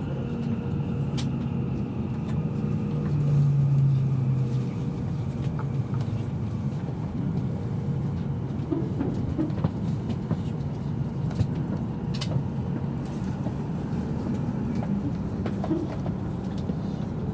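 Cabin noise of an E7 series Shinkansen running: a steady low rumble with a faint whine that falls slowly in pitch as the train slows on its approach to the station, and a few small clicks and knocks.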